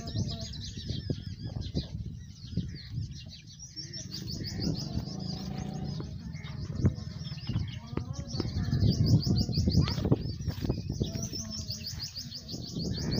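Birds calling in repeated rapid, high trills. Underneath, a louder low rustling with a few sharp knocks, strongest about two-thirds of the way through.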